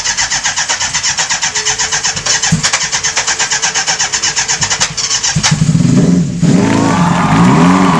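Electric starter cranking the freshly rebuilt Yamaha FZ750 inline-four, a fast even chugging of about eight or nine strokes a second, for about five seconds. Then a steadier, pitched sound that wavers up and down takes over.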